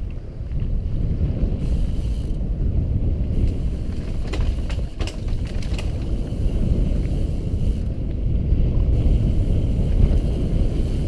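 Wind buffeting the camera microphone and the tyres rumbling as a mountain bike rolls fast down a dirt singletrack, with a brief cluster of rattles and clicks from the bike about four to five seconds in.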